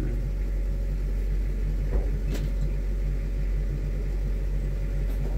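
Steady low engine rumble heard from inside a car cabin on a car ferry, with a single brief knock about two seconds in.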